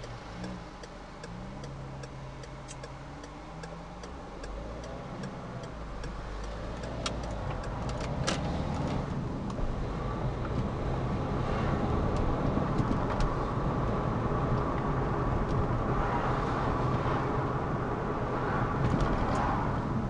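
Car heard from inside the cabin: the turn-signal relay ticks about twice a second over the idling engine while the car waits at the junction. The ticking fades out about halfway as the car pulls away and the engine and tyre-on-road noise grow steadily louder with speed.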